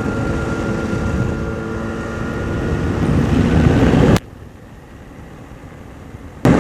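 Ultralight aircraft's two-stroke engine running, with wind noise, heard from the cockpit during a spin. About four seconds in, the sound cuts abruptly to a much fainter hum for about two seconds, then comes back just as suddenly.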